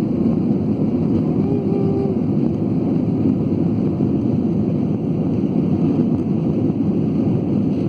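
Steady low rumble of an airplane's engines and airflow after takeoff, even in level with no rise or fall. A faint voice is briefly heard about a second and a half in.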